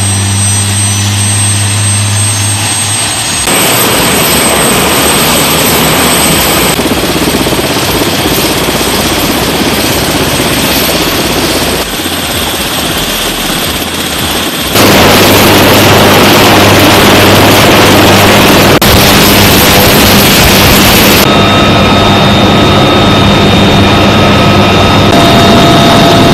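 Bell UH-1Y Venom helicopter running on the ground, its turbine engines and rotor making a loud, steady noise. The sound jumps abruptly in level and tone several times as different clips follow one another, and it is loudest in the second half.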